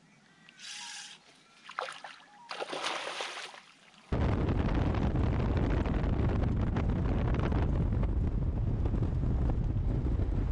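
Loud, steady wind buffeting an externally mounted microphone together with road noise from a four-wheel drive travelling fast on a dirt road, starting abruptly about four seconds in. Before that, only a few brief, faint rushes of noise.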